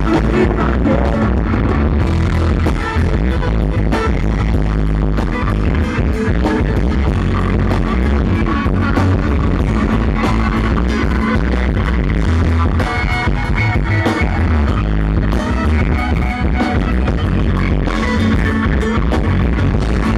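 Loud live band playing electric guitar, bass guitar, keyboard and drums through a PA, with a steady beat throughout.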